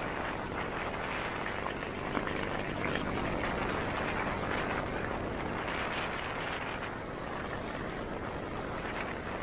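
Wind rushing over the microphone while riding a 500cc 1974 Triumph Trophy, its parallel-twin engine running steadily underneath.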